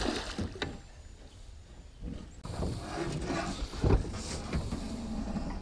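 Musky thrashing in a landing net at the side of a jon boat, splashing water, starting about two seconds in, with a sharp knock about two-thirds of the way through.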